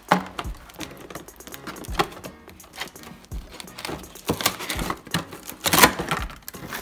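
Cardboard box being opened by hand: a knife slitting the tape seal and the flaps being pried up. Irregular knocks, scrapes and crackles of cardboard, the loudest just after the start and again about six seconds in.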